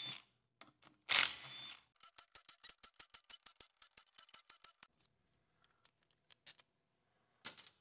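Cordless ratchet undoing valve-body bolts: a brief burst of the motor running, then a quick, even run of ratchet clicks, about seven a second for about three seconds. A few faint ticks and a single click follow near the end.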